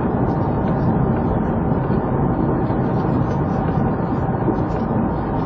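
Steady road and engine noise of a moving car, picked up by a police dash camera and sounding dull and muffled.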